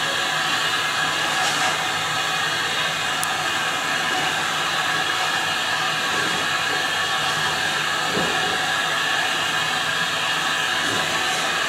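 Steady hiss of steam from a steam locomotive standing at the platform with its train.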